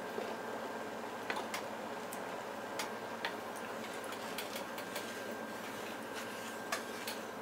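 Rice boiling in water in an aluminium pot while a wooden spatula stirs it: a steady bubbling with scattered light ticks and clicks at irregular intervals.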